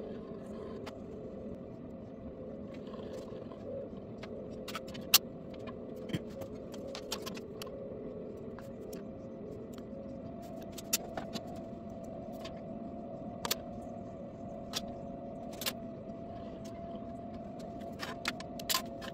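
Metal hand tools clicking and tapping on an aluminum sheet and a steel fixture table as a dial caliper and steel rule are handled: about a dozen sharp clicks, the loudest about five seconds in. A steady hum runs underneath.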